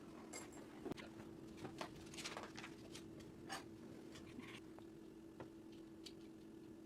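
Small plastic clicks and light rustling from handling and fitting Lego Technic pieces, scattered and irregular, over a faint steady hum.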